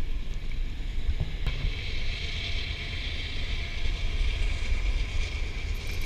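Wind buffeting an action camera's microphone: a steady, gusting low rumble.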